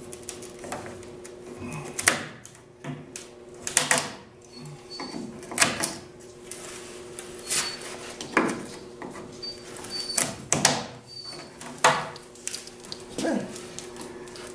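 Hand scraping at the edge of a fiberglass car door: a series of short scraping strokes, one every second or two, some sharper and louder than others. A steady low hum lies under them.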